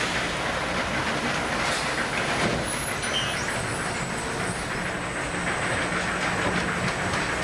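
Steady machinery noise with a low hum and scattered metallic clatter.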